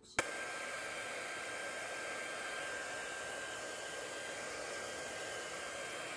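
Hand-held hair dryer switched on with a click just after the start, then running steadily: a constant rush of air with a thin, steady whine.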